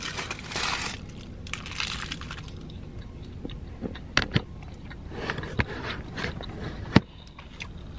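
Chewing and mouth sounds of someone eating a soft glazed donut, with light rustling of its paper sleeve over a low steady car-interior hum. A few sharp clicks cut through, the loudest about seven seconds in.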